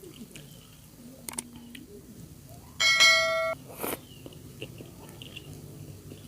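Close-miked chewing of spicy instant noodles, quiet and wet. About three seconds in, a loud ringing tone sounds for under a second, followed by a brief noisy crunch.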